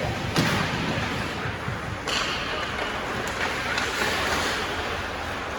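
Ice hockey game sounds: a steady wash of rink noise broken by a few sharp knocks, one just after the start and two more past the middle.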